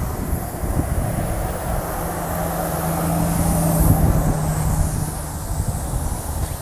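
A low motor hum that swells to a peak in the middle and then eases, over outdoor rumble and wind buffeting the microphone.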